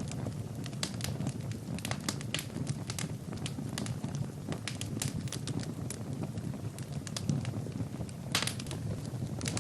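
Wood fire burning in a fireplace: logs crackling with frequent irregular sharp pops over a low, steady rumble of flames. A quick cluster of pops comes about eight seconds in.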